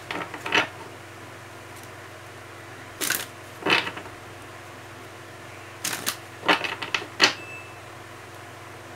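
A deck of tarot cards being shuffled by hand: short bursts of cards snapping and slapping together, in three clusters, near the start, about three seconds in, and again around six to seven seconds in.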